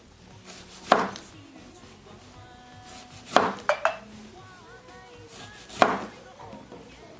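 Kitchen knife halving kumquats, striking the cutting board: a sharp knock about a second in, three quick knocks around three and a half seconds, and another near six seconds. Faint background music runs underneath.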